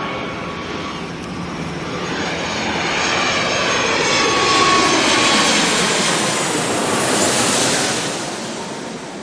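Airplane engine sound effect of a plane passing by. The rush of engine noise builds to its loudest about five seconds in and fades near the end, while a whine through it slides down in pitch.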